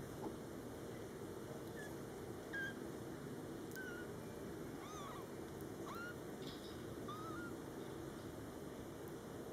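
Young Scottish Fold kittens giving faint, short, high-pitched mews, about one a second, over a steady low rumble.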